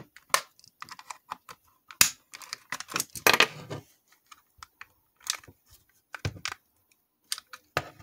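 Plastic clips of an Xbox One controller's side grip panel clicking and snapping as a flathead screwdriver bit pries the panel off, with clatter as the plastic shell is handled. Irregular sharp clicks, with a denser burst a little past three seconds in.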